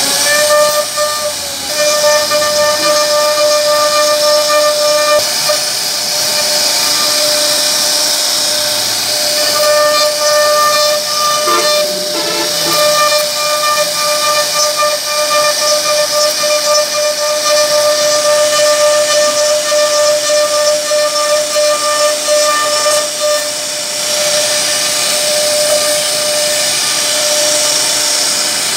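CNC router spindle carving a wooden bed panel: a steady high-pitched whine over the hiss of the bit cutting wood. The pitch rises briefly at the start, then holds steady.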